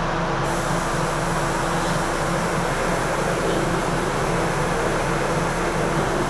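Commercial gas wok burner running with a steady rushing noise over the hum of a kitchen exhaust fan; the hiss grows brighter about half a second in as the burner is turned up.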